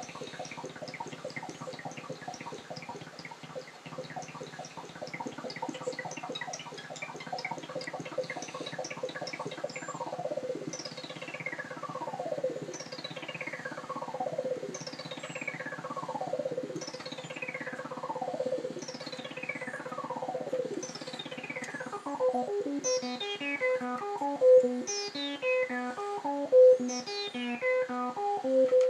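LittleBits Korg Synth Kit oscillator and filter modules making synthesizer tones. First comes a buzzy tone chopped into rapid pulses. Then, about a third of the way in, a high swoop falls in pitch roughly every two seconds over a steady tone. For the last quarter, a stepping sequence of notes repeats.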